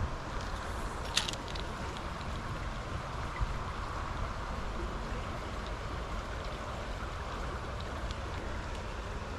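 Shallow stony stream flowing, a steady rush of running water, with a sharp click about a second in.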